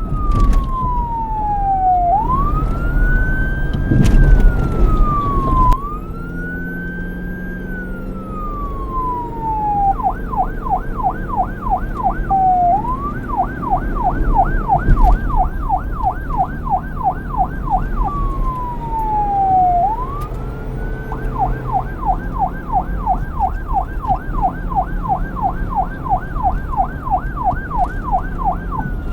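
Police car siren switching between a slow wail, rising and falling every few seconds, and a fast yelp of about three sweeps a second. It returns to a single wail sweep midway before yelping again, over a low rumble.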